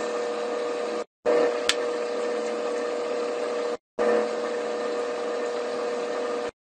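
A machine running with a steady hum at a constant pitch. It is broken twice by short gaps of silence, about a second and about four seconds in, with one sharp tick just under two seconds in.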